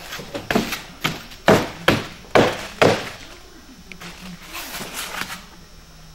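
A quick run of about seven sharp knocks and taps, getting louder over the first three seconds, from foam insulated-concrete-form panels with plastic rails being handled on a wooden worktable, followed by softer rubbing and shuffling.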